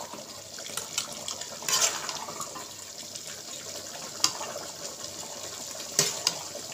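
Metal spoon clinking and scraping against a steel pot and bowl as chicken gravy is spooned from one to the other. Several sharp clinks come over a steady hiss, the loudest about four seconds in and another pair about six seconds in.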